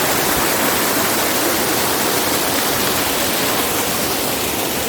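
Waterfall pouring down close by: a loud, steady rush of falling water.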